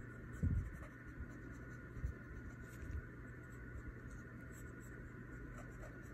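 Pencil sketching on paper: light scratching strokes, with a few low bumps of the hand or paper, the loudest about half a second in.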